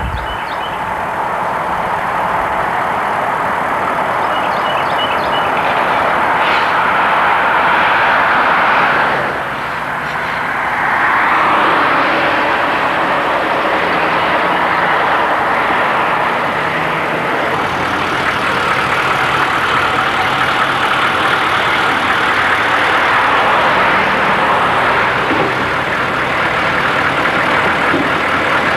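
Vehicle driving: steady road and engine noise, dipping briefly about nine seconds in.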